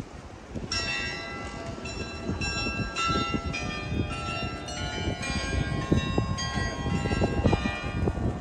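Carillon bells of the Munttoren (Mint Tower) playing a tune, a new ringing note about twice a second, starting about a second in, over wind and a low city rumble.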